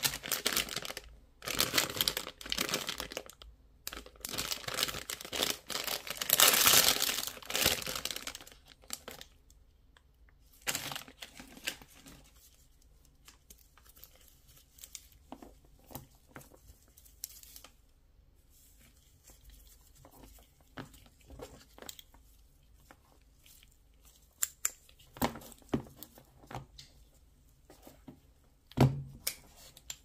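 Plastic packaging pouch crinkling and being torn open by hand, loudest in the first eight seconds or so. Then quieter handling of a cable with scattered small clicks.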